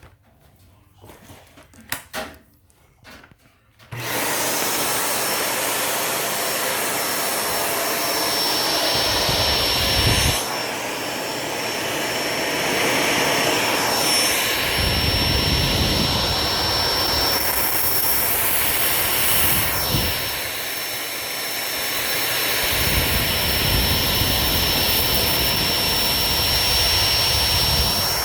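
Shark DuoClean upright vacuum cleaner switched on about four seconds in after a few small clicks, then running steadily with a high whine. Its sound swells and dips several times, with stretches of heavier low rumble, as it is worked over the floor.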